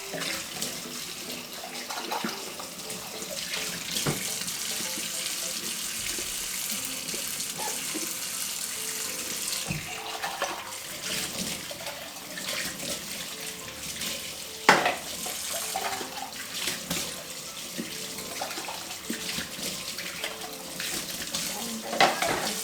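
Tap water running into a sink as bottles are rinsed under it, with several sharp knocks of the bottles being handled, the loudest about two-thirds of the way through.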